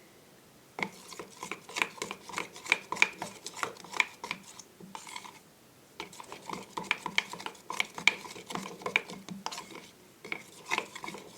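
A utensil clicking and scraping against a bowl as it stirs a runny slime base of PVA glue, water, liquid soap and baby oil, in quick irregular strokes with a short pause about halfway.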